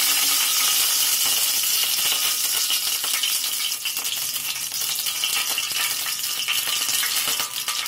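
Cooking oil spooned into a hot stainless steel kadai, sizzling with a steady hiss. Scattered crackles grow more frequent from about three seconds in.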